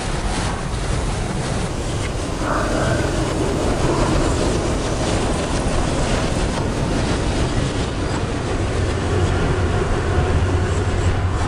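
Steady loud rumbling noise, with a low hum growing stronger in the second half.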